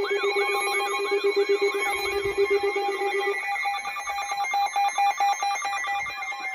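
Electronic alert tone between EAS warnings: several steady pitches layered with a warbling tone that sweeps up and down about twice a second, over a fast pulsing. The lowest pitch drops out about halfway through.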